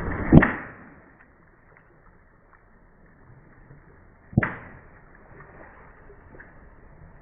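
Two sharp, sudden bangs about four seconds apart, each dying away quickly; the first is the louder.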